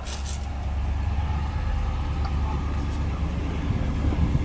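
2016 Ram 2500's 6.4-litre HEMI V8 idling steadily just after starting, a smooth low hum heard from inside the cab.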